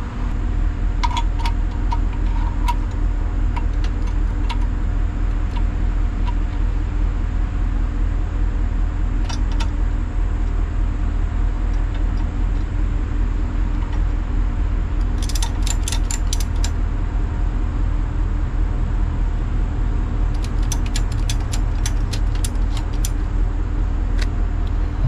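Tow truck engine idling steadily. Two runs of quick metallic clicks, about halfway through and again near the end, as the wheel-lift tie-down straps are ratcheted tight around the towed car's wheels.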